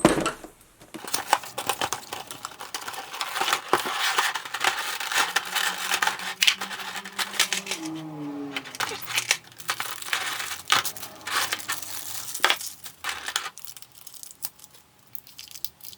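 Plastic packaging of a Nendoroid figure being unboxed: a dense run of crinkling and small clicks as the plastic trays and bags are handled, thinning out near the end.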